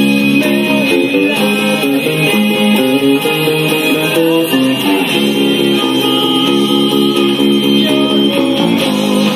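A four-string electric bass, played with the fingers, playing a continuous bass line along with a guitar-led band recording of a pop-rock song.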